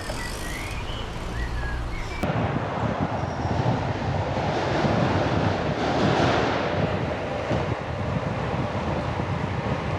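Wind rushing over the microphone of a camera on a road bike moving at speed, swelling about halfway through. The first two seconds are quieter, with a few short chirps.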